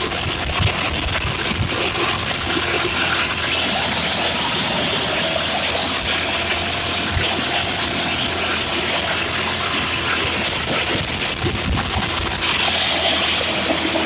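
Cummins ISX inline-six diesel engine running at idle, heard as a steady rushing noise with a low hum; the rush grows a little louder near the end.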